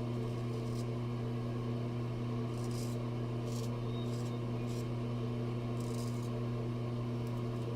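Straight razor scraping through lathered stubble in about half a dozen short, crisp strokes, over a steady low electrical hum.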